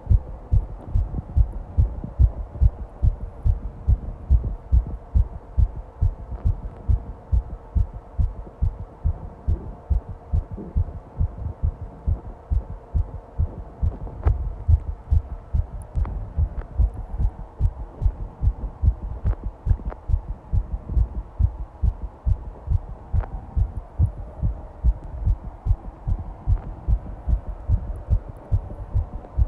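Fast heartbeat: a steady, even run of low thumps, about two beats a second, with a faint steady hum underneath.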